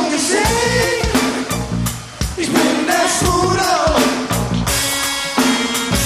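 Live band music played loud through a PA: a drum kit keeping a steady beat with a repeating bass line and a melody line on top.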